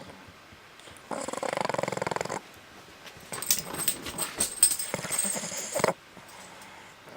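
A Boston terrier growling, a buzzing, rapidly pulsed growl lasting just over a second, followed by a couple of seconds of rustling and clicking.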